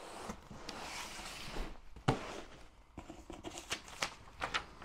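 Cardboard boxes being handled and swapped. Rustling and scraping comes first, then one sharp knock about two seconds in as a box is set down, then light crinkling and clicking of paper and cardboard on the new box's lid.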